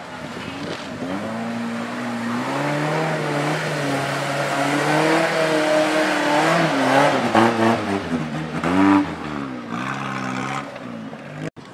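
Small off-road 4x4's engine revving under load as it crawls through mud, its pitch rising and falling with the throttle.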